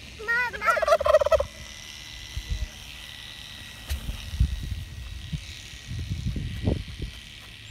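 A domestic turkey tom gobbles once, a rapid warbling call lasting about a second, just after the start. Scattered low thumps follow over the next few seconds.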